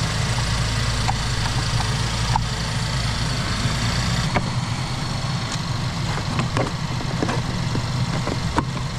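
A Chevrolet Traverse's V6 engine idling steadily just after a jump start, with scattered light clicks and knocks as the jumper clamps are unclipped from the battery terminals.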